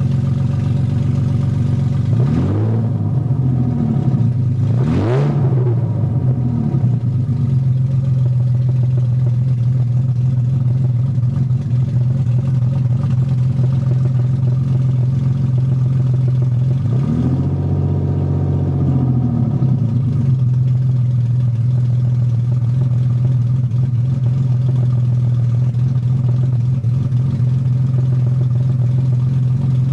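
BMW M50 non-VANOS inline-six idling in an E30, with a few quick throttle blips in the first several seconds and a slower rev up and back down around the middle. The idle is rough, with fault codes pointing to a bad crank sensor and a bad O2 sensor.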